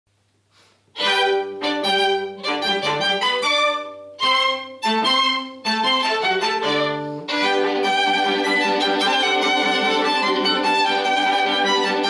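String quartet of two violins, viola and cello playing together. After about a second of quiet come short, separated chords with brief gaps between them; from about seven seconds in the playing turns into one continuous sustained passage.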